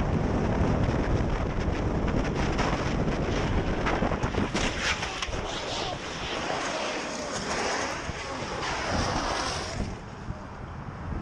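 Wind buffeting a motorcycle-mounted camera's microphone at freeway speed, with the motorcycle running underneath. About four and a half seconds in the bike crashes, and a long harsh scraping of it sliding along the asphalt lasts about five seconds before it drops away.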